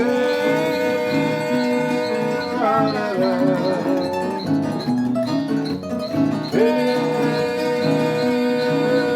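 Instrumental passage of a song: plucked strings keep a rhythm under a melody of long held notes that bend in pitch as each one ends.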